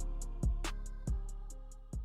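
Hip-hop beat playing without vocals: drum-machine kicks that drop in pitch, hi-hat ticks and a held bass note, getting steadily quieter as the track fades out.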